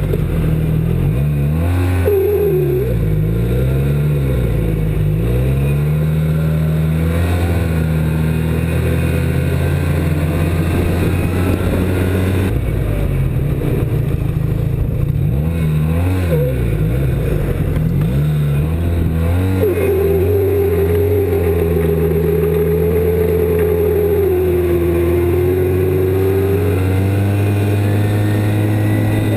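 A 2007 Arctic Cat Z1 snowmobile's engine running, its revs rising and falling a few times in the first seconds and again about halfway. In the second half a steady squeal from the drive belt holds for several seconds, sagging slightly in pitch before it fades.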